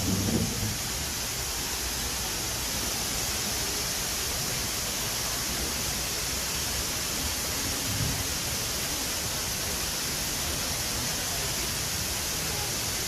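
Artificial waterfall pouring: a steady, even rushing of falling water.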